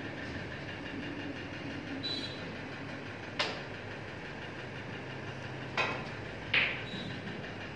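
Snooker balls clicking: three sharp knocks of cue and balls striking, one about three and a half seconds in and two more close together a couple of seconds later, over a steady background hum.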